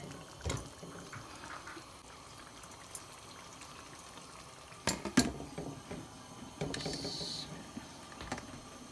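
Chicken and masala simmering in a karahi, a faint steady bubbling, with a few metal clinks of a spoon against the pan about five seconds in and a brief hiss near seven seconds.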